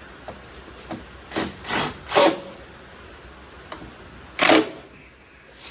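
Cordless drill-driver run in short bursts, driving bolts back in: three quick bursts close together, then one more about two seconds later.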